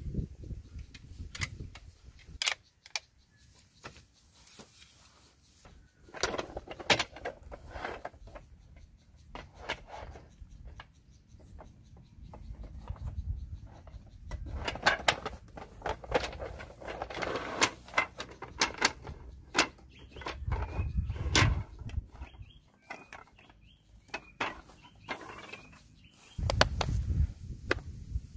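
Wooden folding camp table being set up: the frame's hinged legs clicking and the wood knocking as it is unfolded, then the slatted wooden tabletop clattering as it is laid onto the frame. Near the end a plastic folding stool is handled with a few knocks.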